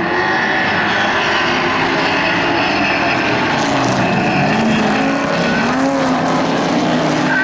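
Several stock car engines running hard together as a pack races through a turn on a dirt oval, their pitches rising and falling as the cars pass.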